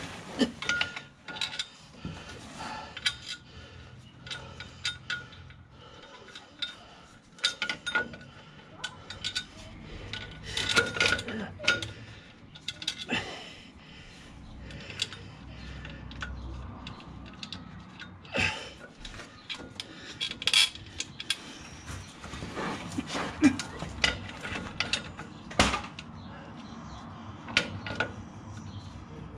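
Irregular metallic clinks, scrapes and knocks of a clutch pressure plate being shifted by hand against the flywheel while its bolts are started in their threads, with a few sharper knocks in the second half.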